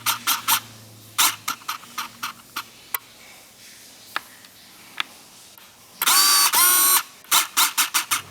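Irregular clicks and knocks, with a loud pitched squeak in two parts about six seconds in.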